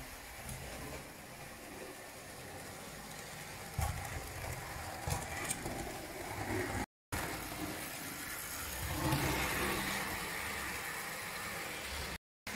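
O-gauge tinplate toy tram running on metal track: a steady whirring rumble with a few sharp clicks from the wheels. The sound drops out briefly twice, about seven seconds in and near the end.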